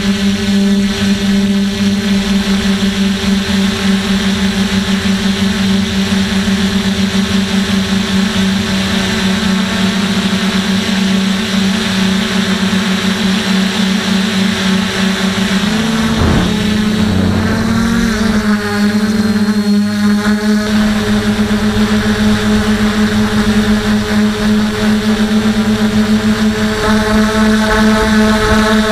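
DJI F450 quadcopter's brushless motors and propellers buzzing steadily, heard up close through the onboard action camera's microphone. The pitch wavers and shifts briefly about halfway through as the motors change speed, and a higher tone grows louder near the end.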